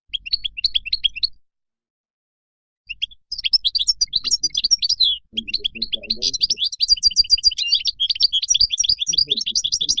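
European goldfinch singing its wild song: a short burst of quick twittering notes, then, after a pause of about a second and a half, a long unbroken run of fast twittering phrases.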